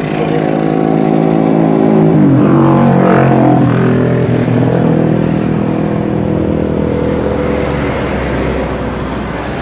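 Airbus A330-200's Rolls-Royce Trent 700 turbofans at takeoff thrust during the takeoff roll: a loud, steady jet engine noise with whining tones. The tones drop in pitch about two to three seconds in as the airliner passes, and the noise stays loud through rotation.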